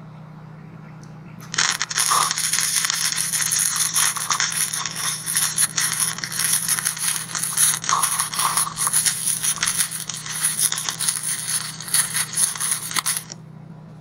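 Stick-welding arc crackling and sizzling steadily as a bead is run on thin steel. It starts about one and a half seconds in and cuts off a little before the end, over a steady low hum.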